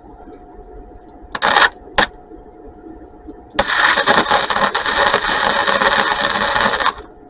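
Welder tacking an exhaust pipe: two short crackling bursts, then a longer crackling weld of about three seconds.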